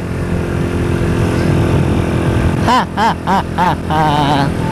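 Small motorcycle's engine running steadily at cruising speed, heard from the rider's seat. A person's voice cuts in briefly over it a little before the end.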